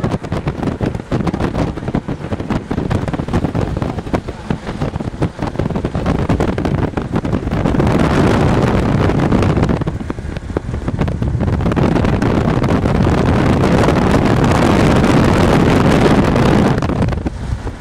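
Storm wind buffeting the camera microphone, a rumbling rush that swells into loud gusts about eight seconds in and again from about eleven to seventeen seconds.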